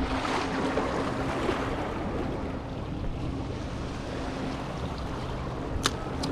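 Sea waves washing against jetty rocks, with wind buffeting the microphone. Two sharp clicks sound near the end.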